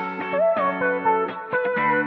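Outro music: a melody of plucked, guitar-like notes over held chords, with a new note every fraction of a second.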